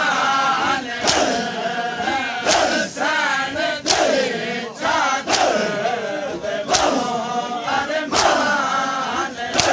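A crowd of men chanting a mourning noha in unison. About every second and a half the crowd beats their chests together in matam, a sharp collective slap, seven times.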